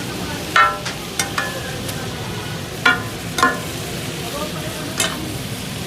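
Metal spatulas striking a hot iron tawa griddle as brain masala is chopped and fried takatak-style: about six sharp, ringing clangs at an uneven pace over a steady sizzle.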